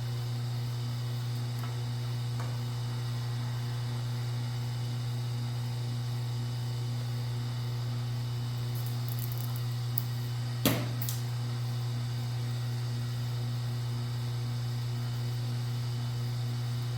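Steady electrical mains hum, with one sharp click about ten and a half seconds in.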